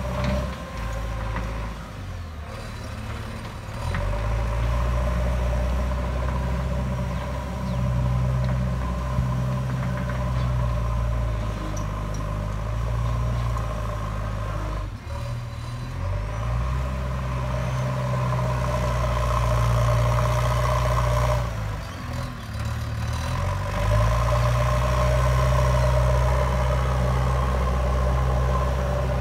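JCB 3DX backhoe loader's diesel engine running under load as the machine drives and pushes soil with its front bucket, with a steady whine over the engine note. The engine drops back briefly three times and picks up again.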